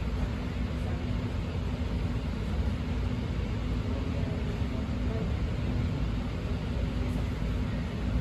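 Steady low rumble inside a BART train car, with one even hum held throughout, as the car sits nearly still.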